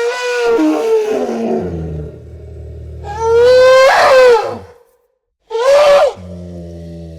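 Elephant trumpeting: three blaring calls, the first already sounding at the start, the longest and loudest about three seconds in, and a short one about six seconds in. A low steady rumble sounds between the calls and after the last.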